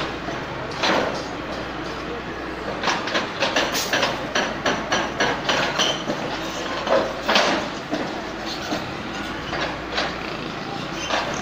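Hitachi hydraulic excavator's diesel engine running steadily while its bucket breaks up a concrete building. Repeated knocks and clatter of breaking concrete and falling rubble, thickest from about three to eight seconds in, with a heavy crash near the middle.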